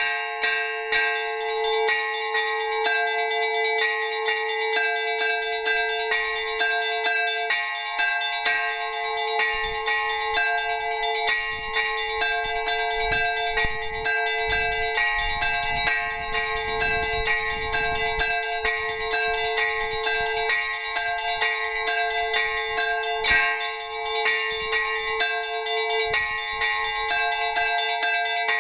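Orthodox monastery bells rung together in a peal for the blessing of water: several bells of different pitches struck in a quick, continuous pattern over a steady, sustained bell note.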